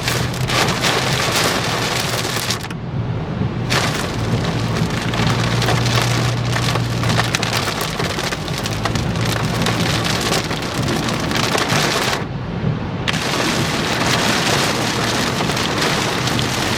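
Heavy rain drumming on a vehicle's roof and windshield, heard from inside the cabin, with the steady low drone of the moving vehicle beneath it. The patter thins out suddenly twice for about a second.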